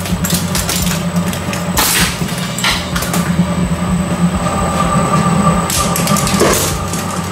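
Industrial twin-shaft shredder running, its motor and turning cutter shafts giving a steady low hum. A few sharp cracks and clatters come through it, about two seconds in and near the end, with a thin whine in between.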